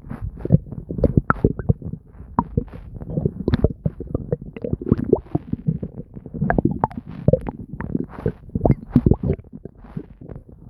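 Human stomach gurgling and bubbling without pause: a dense run of short pops and low rumbles.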